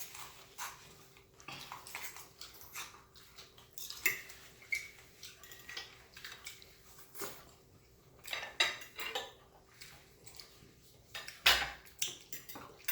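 Cutlery clinking and scraping on a plate in irregular short knocks while a piece of lobster is cut and picked up, with the loudest clack near the end.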